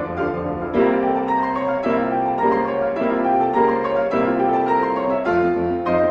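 Background piano music, a steady run of notes with a change of chord about a second in and again near the end.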